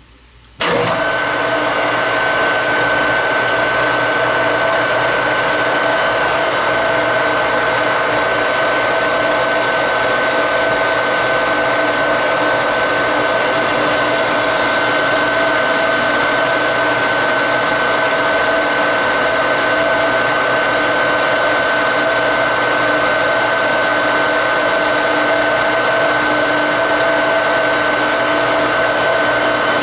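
Machine tool running steadily through a finishing cut, a steady gear whine over even machining noise, starting abruptly under a second in.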